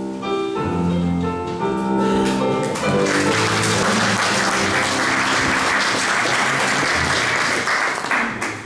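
A piano plays the closing chords of a song. About three seconds in, the audience breaks into steady applause, which stops fairly suddenly near the end.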